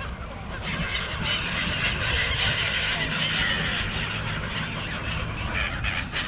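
A large flock of gulls calling together, many overlapping cries that swell from about a second in, over a steady low rumble.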